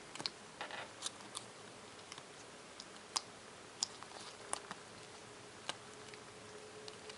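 Faint scattered clicks and light rustles of a wired earphone set in clear plastic wrapping being handled and turned over in the fingers.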